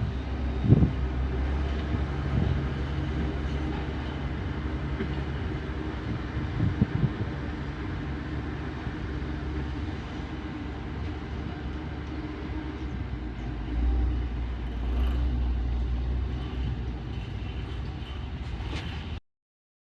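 Heavy construction machinery engine running steadily, with a few knocks near the start and a louder stretch about two-thirds of the way in. The sound cuts off suddenly just before the end.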